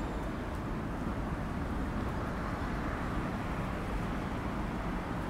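Steady low rumble of vehicle noise, even throughout, with no clicks or rising and falling pitch.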